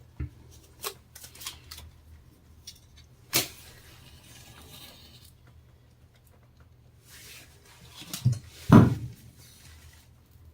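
Scattered clicks and knocks of tools and parts being handled, with a louder thump about nine seconds in.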